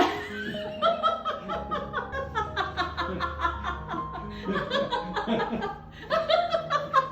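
Laughter over background music, right after a punchline.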